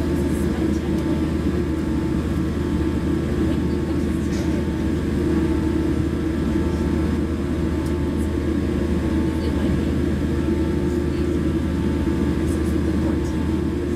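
Steady drone of a jet airliner's engines at idle, heard inside the passenger cabin, with a low rumble and a faint steady whine.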